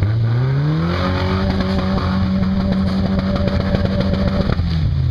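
Lifted pickup truck's engine revving under load as it climbs a muddy, rutted trail: the engine note rises over about the first second, holds at a steady high rev for about three and a half seconds, then drops near the end.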